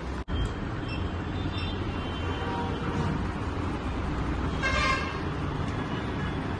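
Steady low traffic rumble with a short vehicle horn toot about four and a half seconds in.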